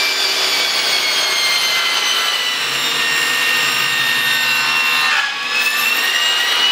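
Table saw cutting through a sheet of plywood: the saw's whine sinks slowly in pitch as the blade takes the load, dips about five seconds in, then climbs back.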